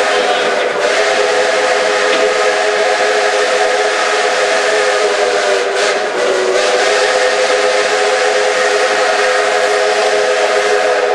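Steam locomotive whistle blowing one long, held blast of several steady notes over the running noise of the train. It cuts off at the end.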